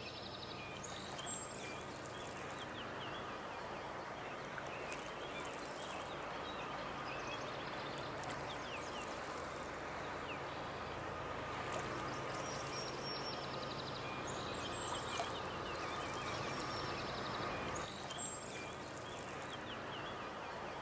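Birds chirping and trilling, with many short calls and rapid trills scattered over a steady background hiss of outdoor air and water.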